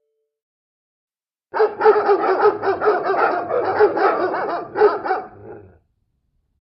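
A recorded dog-barking alert tone from a Ring device or app: a rapid run of barks starting about a second and a half in, lasting about four seconds and fading at the end.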